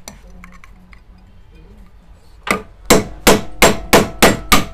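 Metal-on-metal hammer blows knocking out the rivets that hold the bush cover on an air cooler motor's end shield: one blow about halfway in, then six quick, evenly spaced blows about three a second.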